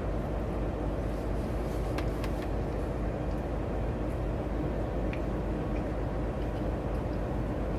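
Steady low running hum of a semi truck heard inside its sleeper cab, with a few faint clicks of a fork against a plate.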